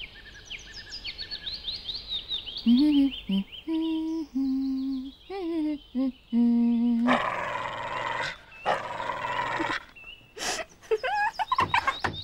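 A sequence of sound effects: small birds chirping and twittering, then a short run of low held notes, then an angry dog snarling and barking loudly near the end.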